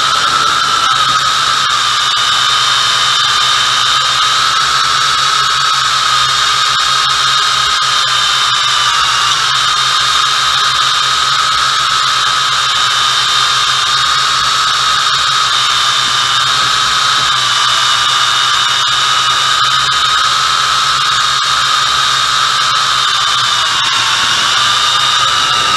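MJX X101 quadcopter's motors and propellers whining steadily, heard up close from on board in flight. The pitch wavers a little up and down as the throttle shifts.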